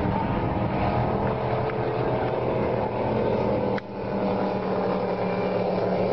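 Speedboat engine running at speed, a steady drone, with a brief sharp drop about four seconds in before it comes back.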